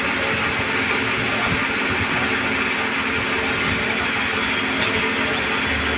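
CNC lathe running steadily during shaft turning: a constant machine whir with a low hum and a hiss that do not change.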